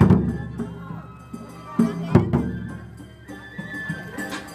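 Festival taiko drum beaten, with three heavy strikes about two seconds apart and lighter beats between them, over traditional festival music and voices.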